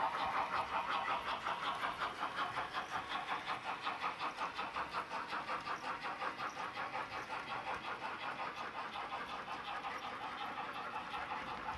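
H0-scale model steam locomotive running with a freight train, making a fast, even pulsing sound several beats a second that grows gradually fainter as the train moves away.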